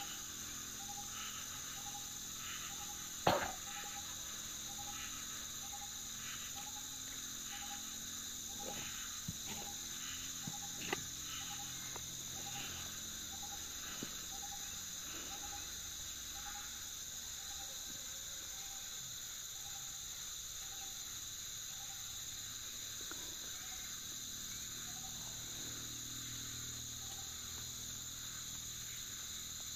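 Steady high-pitched insect chorus, with a short chirp repeating about twice a second through most of it. A single sharp knock about three seconds in, and a few faint clicks later.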